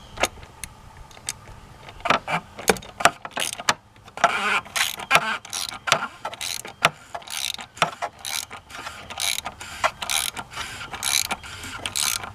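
Socket ratchet clicking as it tightens a new oil filter. A few isolated clicks at first, then from about two seconds in a steady run of quick strokes.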